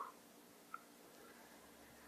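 Near silence: quiet room tone with a faint steady hum, and one short soft click about three quarters of a second in.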